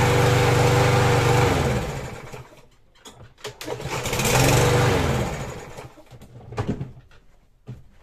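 Briggs & Stratton 550EX 140cc overhead-valve mower engine running, then shut off and winding down about two seconds in. At about three and a half seconds it is pull-started again, catches at once, runs for a second or so and winds down. A few short knocks near the end.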